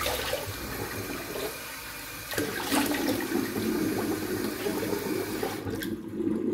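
Bathroom tap running into a sink while water is splashed onto the face to rinse it after a shave, with a few sharp splashes; the running water stops near the end.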